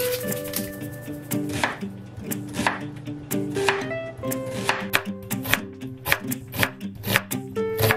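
Chef's knife slicing a yellow onion on a wooden cutting board, the blade knocking on the board in quick strokes about two or three times a second from a second or two in. Soft background music plays underneath.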